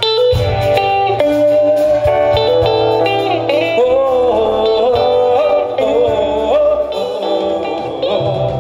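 A live band breaks into a song: a lead guitar plays a melody with bent, sliding notes over bass and drums. It comes in suddenly and loud.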